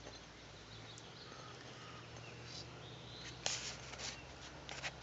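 Quiet background: a steady low hum with a few short, soft rustles and clicks, the clearest about three and a half seconds in.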